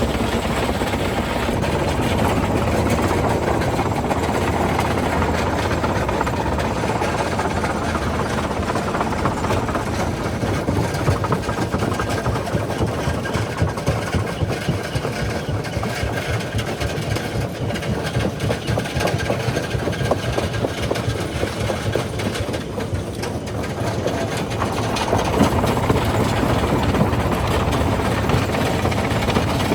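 Primary jaw crusher running with a steady heavy machinery drone, rock knocking and cracking as it is crushed, with a few louder knocks partway through and near the end.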